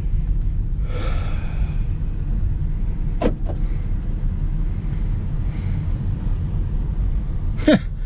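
Steady low rumble of a car's engine and tyres heard inside the cabin while driving, with a breathy sigh about a second in and a short voice sound near the end.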